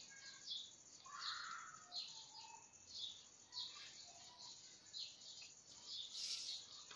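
Faint birds chirping: short high notes repeating about every half second. A soft rustle comes about a second in, and a brief hiss near the end.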